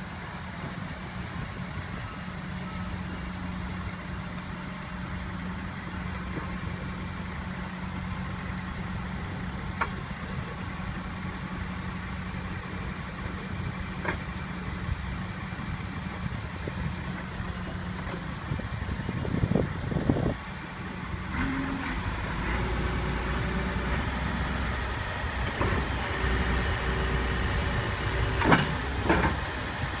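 Cat 924G wheel loader's diesel engine running steadily, then revving up about two-thirds through and running harder from then on, with two sharp metal clanks near the end.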